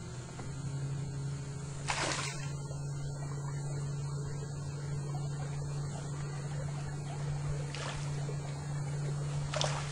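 Electric canoe motor humming steadily at a low pitch, starting about half a second in. Three brief hissing bursts come about two, eight and nine and a half seconds in.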